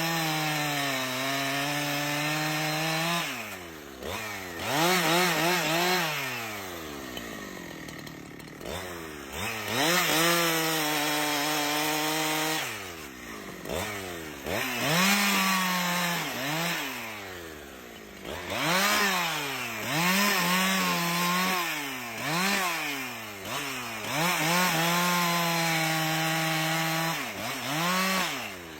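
Chainsaw engine running and cutting wood, held at a steady high pitch for a few seconds at a time, then revving up and down repeatedly as the throttle is worked.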